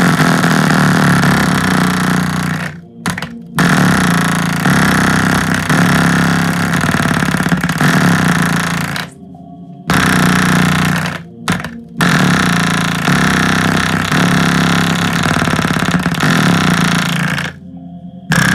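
A Samsung 6.5-inch subwoofer driver pushed hard on a bass test track, its output harsh and rattling with distortion. The music stops in brief gaps a few times.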